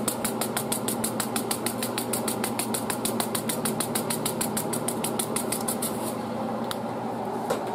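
Sesame seeds rattling in a shaker jar shaken rapidly over a plate, about seven shakes a second, stopping about six seconds in; a couple of single clicks follow near the end. A steady hum runs underneath.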